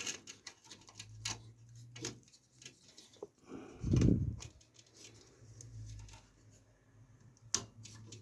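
PC power-supply cables being handled and routed inside a PC case: scattered light clicks and taps, with a dull thump about four seconds in, the loudest sound.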